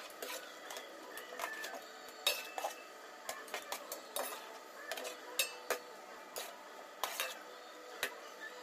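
Long metal spoon stirring pork pieces in an aluminium pot, knocking and scraping against the pot's side and bottom in irregular clinks.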